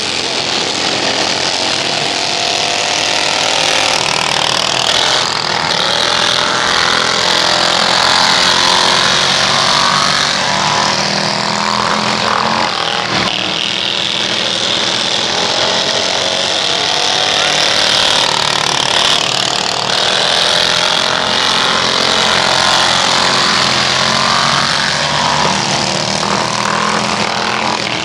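Several racing lawn mower engines running hard at once, their pitch rising and falling as they lap a dirt oval.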